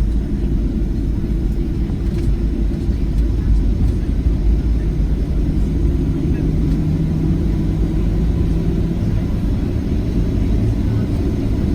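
Steady low rumble of a Boeing 737-700's CFM56-7B jet engines and airflow, heard from inside the passenger cabin.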